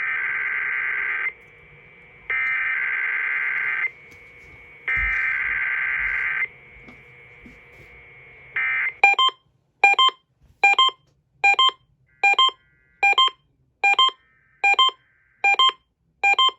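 Emergency Alert System tones over radio: three screeching bursts of EAS SAME digital header data, each about a second and a half long with short gaps. About nine seconds in comes the two-tone EAS attention signal, here chopped into about ten short beeps at just over one a second.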